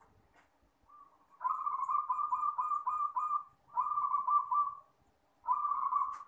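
Zebra dove (perkutut) cooing its song: three phrases of quick, repeated staccato coo notes, each lasting about one to two seconds.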